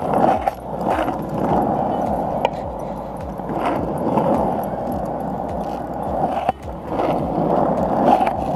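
Skateboard wheels rolling steadily over an asphalt path, a continuous rumble with a few sharp clicks, dropping away briefly about six and a half seconds in.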